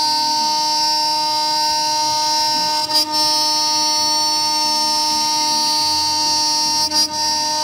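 CNC router spindle milling aluminium plate with an end mill: a loud, steady, high-pitched whine with a few fixed tones. The whine breaks briefly twice, about every four seconds.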